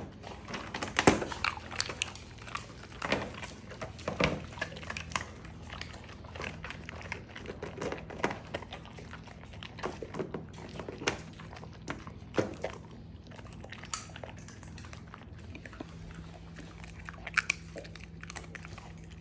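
Dog chewing a dehydrated jerky treat: irregular crunching and biting, with the loudest crunches about a second in, over a faint steady low hum.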